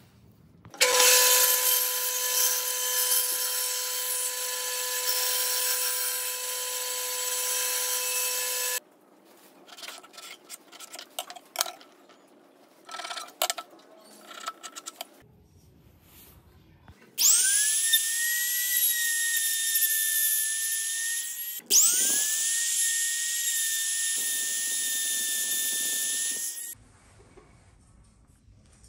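Electric woodworking power tools: one runs loudly for about eight seconds, then small scrapes and taps follow. Near the end a high-pitched motor spins up with a rising whine and runs steadily, stops for a moment, then spins up again and runs for about five seconds before cutting off.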